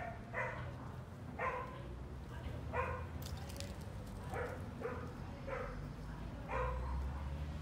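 Kittens mewing: short, high squeaky mews, about seven of them at roughly one-second intervals.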